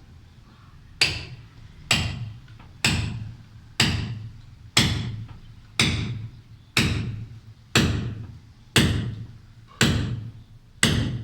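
Hammer blows on a steel chisel cutting into concrete, about one a second at an even pace, each strike ringing briefly as it dies away.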